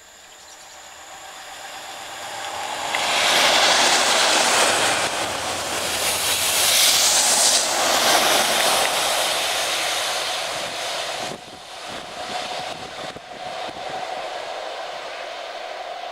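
Railhead treatment train hauled top-and-tailed by two Class 97/3 diesel locomotives (rebuilt Class 37s) going past: the sound grows as it approaches, is loudest from about 3 s in for several seconds, then drops suddenly about 11 s in and carries on at a lower level as the train moves away.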